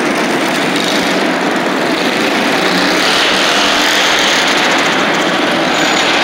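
Several small single-cylinder minibike engines running together, getting a little louder about three seconds in.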